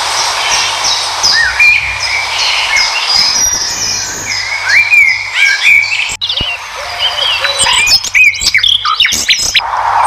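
Wild birds chirping and calling, many short rising and falling chirps overlapping over a steady background hiss, with a brief break about six seconds in.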